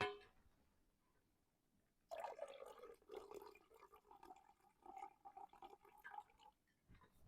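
Coffee being poured, a faint liquid stream running for about four seconds, starting about two seconds in, after a short click at the start.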